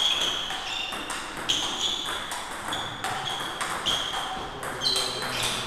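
Table tennis rally: the ball clicks sharply off the bats and the table in quick succession, about two hits a second.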